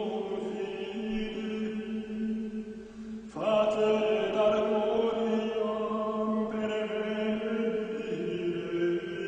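Slow liturgical chant sung on long held notes as background music; it dips briefly and a louder new phrase begins about three seconds in.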